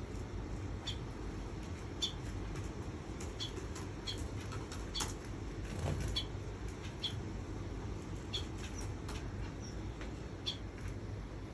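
Finches giving short, high peeping chirps at irregular intervals of about a second, with light splashing of shallow water as they bathe, over a steady low hum.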